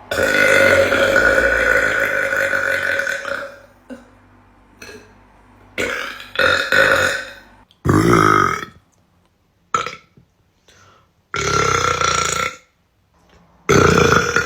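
A young woman burping: one long drawn-out belch of about three and a half seconds, then a string of shorter belches with short gaps between them.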